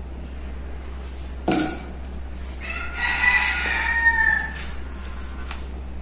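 A rooster crows once, a drawn-out call of about two seconds near the middle that falls away at the end. A sharp knock sounds shortly before it, over a low steady hum.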